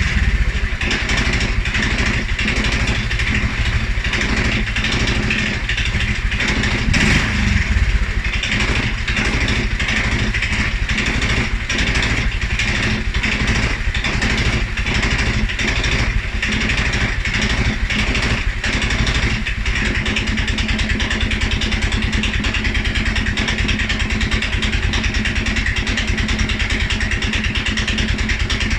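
2011 Polaris Sportsman 550 XP ATV engine idling low and rough, swelling briefly about seven seconds in before settling back. This is the stumble and rough idle the owner complains of, which persists although the EFI sensors, valve clearances, timing, spark plug and fuel pressure have all checked out in spec.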